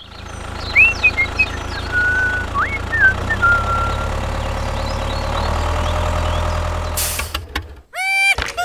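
Tractor engine running steadily with a low, even hum, while birds chirp during the first few seconds. About seven seconds in there is a short hiss, then a rising tone near the end.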